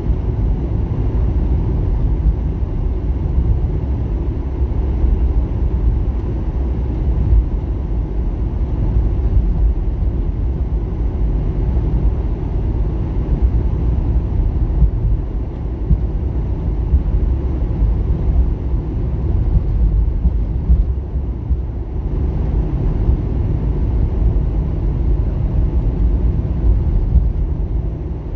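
A car driving at road speed: a steady low rumble of tyres and engine that runs on evenly, with no sudden events.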